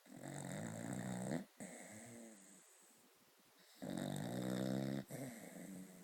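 Snoring: two long snores, the second starting about four seconds in, each with a short break partway through.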